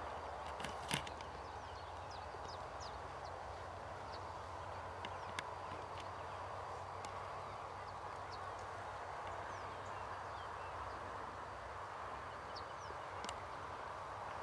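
Steady outdoor background hiss with faint, scattered high chirps of small birds in the distance and a few sharp clicks, the loudest about a second in.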